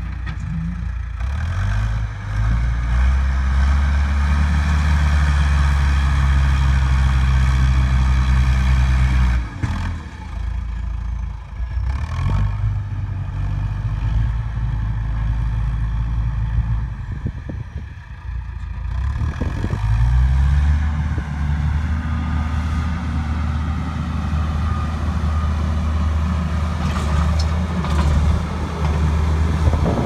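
John Deere 310E backhoe's diesel engine revving up, holding high revs, then dropping back, three times over as it works. A few knocks near the end.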